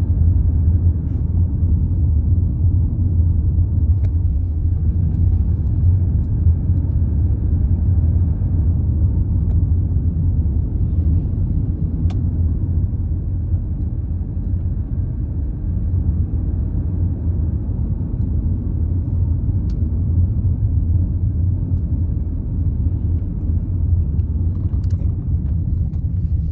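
Steady low rumble inside a BMW F10 520d with the car running, with faint sharp clicks roughly every eight seconds from under the steering wheel, like a relay opening and closing; the owner says everything works fine and does not know the cause.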